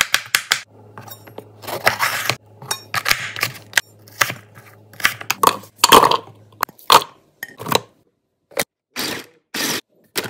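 Chef's knife chopping a carrot on a bamboo cutting board: a quick run of separate sharp chops, with sliced carrot pieces clattering into a plastic food-processor bowl about six seconds in. Near the end the sound comes as a few short bursts with silence between them.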